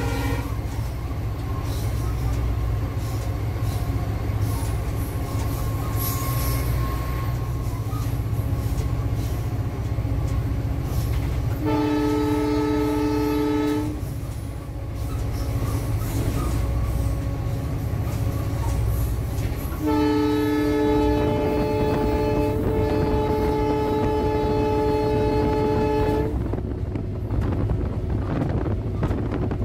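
EMD GT46PAC (WDP4) diesel-electric locomotive running at speed with a steady low rumble while its multi-tone horn sounds twice: a blast of about two seconds, then a longer one of about six seconds.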